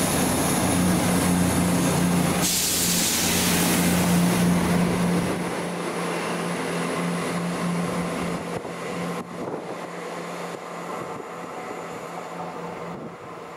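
A train passing by: a steady hum with a rushing hiss that peaks about two to four seconds in, then the sound fades away steadily as the train recedes.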